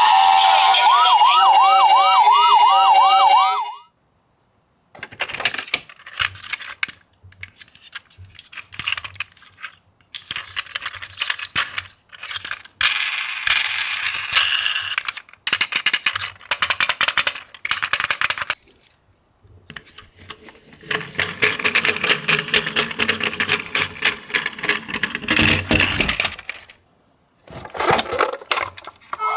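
Music with a wavering siren-like tone for the first few seconds. After a brief silence comes a long, irregular run of clinking and clattering, with short pauses, as small toy ambulances are handled and knock against each other in a box.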